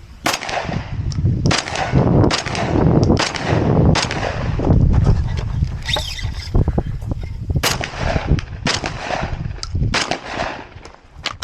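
A string of gunshots fired during a timed shooting stage, about a dozen sharp reports at uneven intervals, roughly one every half second to a second, with short gaps between groups.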